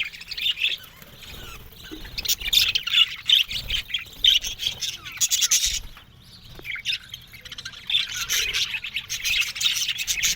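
A flock of budgerigars chattering and squawking together, many rapid chirps overlapping. The chatter comes in waves, dropping to a quieter spell about six seconds in and swelling again near the end.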